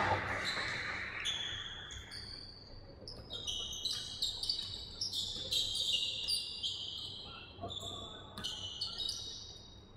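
Basketball shoes squeaking on a hardwood gym floor as players run and cut, many short high squeaks that come thickest in the second half, with a basketball bouncing on the court.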